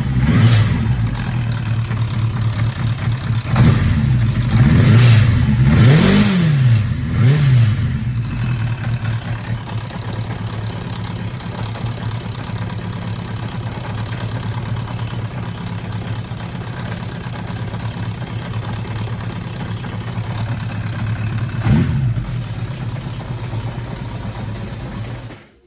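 Kawasaki Zephyr 750's air-cooled inline-four running, blipped several times in quick succession in the first eight seconds and once more briefly near the end, idling steadily in between. At idle it carries an abnormal noise that the owner says goes away when the revs are raised and hopes a cam chain adjustment will cure; one cylinder (#3) is still not burning fully.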